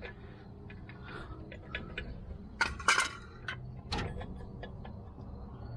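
Light metallic clicks and clinks of drum brake hardware and hand tools being handled, loudest in a few sharp clinks a little past halfway.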